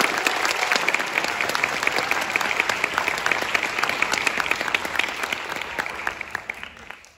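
Audience applauding in a hall, a dense patter of many hands clapping that thins out and dies away in the last couple of seconds.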